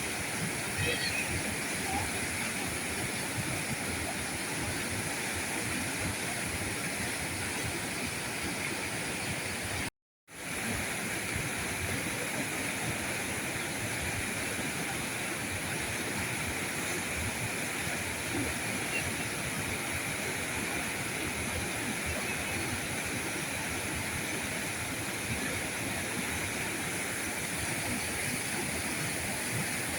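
River current rushing steadily. The sound cuts out completely for a fraction of a second about a third of the way in, then resumes.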